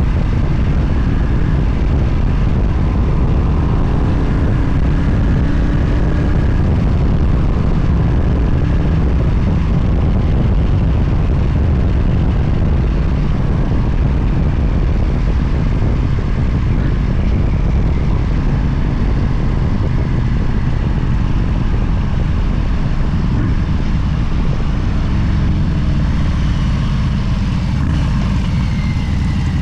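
Steady vehicle running noise: a loud, unbroken low rumble with wind rush, typical of a motorcycle at road speed.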